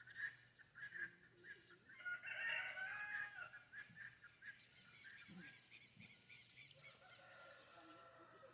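A rooster crowing once in a long call about two seconds in. Small birds chirp in quick repeated notes around it.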